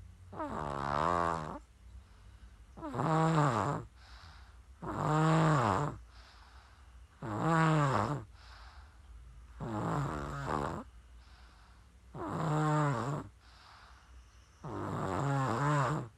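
A young child snoring loudly and rhythmically, seven voiced snores about two seconds apart, each rising and falling in pitch, with quieter breaths between them.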